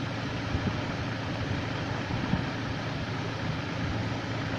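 Steady low hum with an even hiss of background noise, broken by a few faint ticks.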